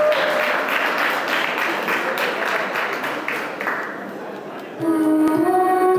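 Audience applauding and cheering, dying away over about four seconds. Then dance music for the zouk couple starts a little under five seconds in, with steady held notes.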